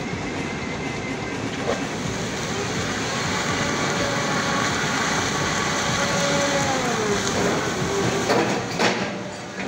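A heavy fuel tanker truck's diesel engine straining under load as its rear drive wheels spin on a slick dirt road, the tyres throwing up smoke and dust. A whine falls in pitch about seven seconds in, and a few sharp knocks come near the end.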